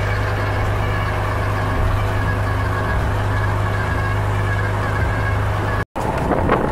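Fishing boat's engine running steadily while the boat is underway, heard from inside the wheelhouse as a constant low hum. It cuts off abruptly near the end, followed by a few knocks.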